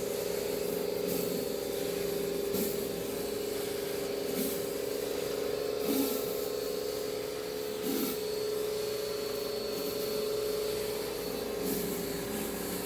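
Kärcher 1800 PSI electric pressure washer running, its motor and pump humming steadily under a hiss of water spray, with a few brief swells as the spray shifts.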